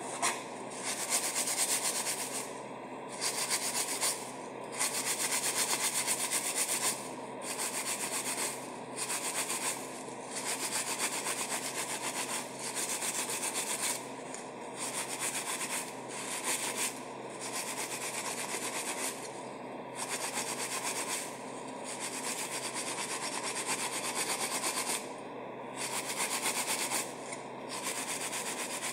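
Steel-wool scouring pad scrubbing a stainless steel sink, scouring off blackened grime in repeated stretches of a second or two with short pauses between.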